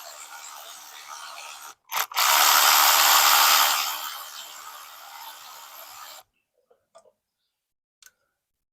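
Power tool with a socket spinning out the stator's M8 mounting bolts on a Honda XR100R dirt bike: a steady motor run that stops about two seconds in, a click, then a second, louder run that fades and cuts off about six seconds in. A few faint clicks follow near the end.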